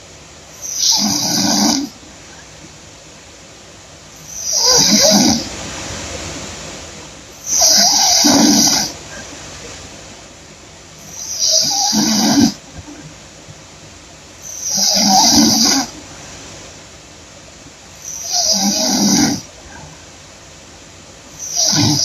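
A woman snoring loudly in deep sleep, with a snore about every three and a half seconds, seven in all, each lasting a little over a second.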